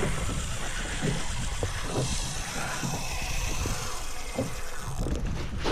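Steady rushing and rumbling noise of a small boat at sea, wind and water, with a few light knocks.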